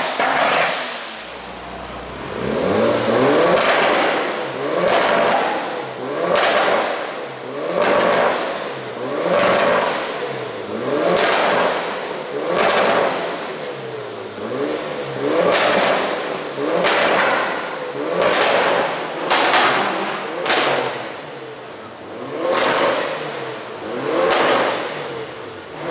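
Turbocharged Mitsubishi Lancer Evolution engines revved hard over and over, roughly once a second or so, each rev climbing in pitch and then falling away. Each comes with sharp bangs and pops from the anti-lag system firing in the exhaust.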